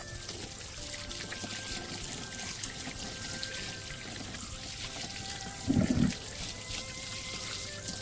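Water running and splashing, a steady hiss, over background music, with a brief low thud about six seconds in.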